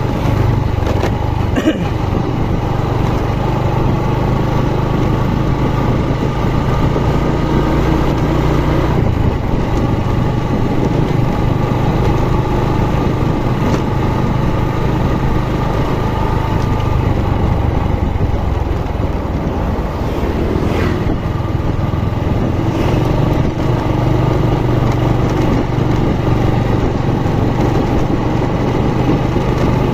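Motorcycle engine running steadily while riding, its note shifting about nine seconds in and again near twenty seconds.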